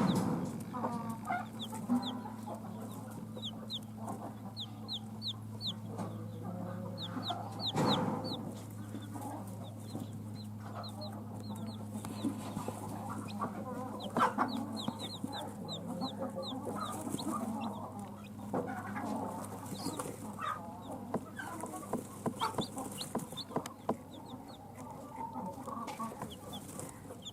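Newly hatched chicks peeping in short, high-pitched chirps in irregular runs, with a broody hen clucking lower beneath them. A steady low hum runs underneath.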